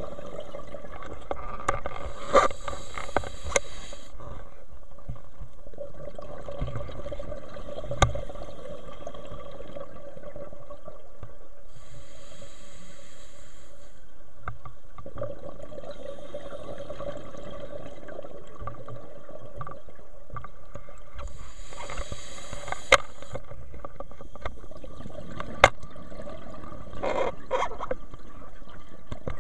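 Scuba diver breathing through a regulator underwater: hissing inhalations and gurgling exhaust bubbles come in bursts about every ten seconds, over a steady hum, with a few sharp clicks.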